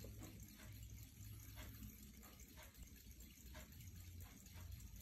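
A 1925 Westclox Pocket Ben dollar pocket watch ticking faintly, its pin-lever movement giving an even run of small clicks over a low background hum.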